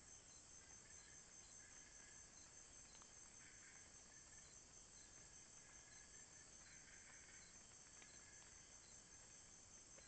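Faint night-time forest insect chorus: a steady high-pitched pulsing trill, a short tick repeating at a regular pace, and a lower buzzing call that comes and goes every second or two.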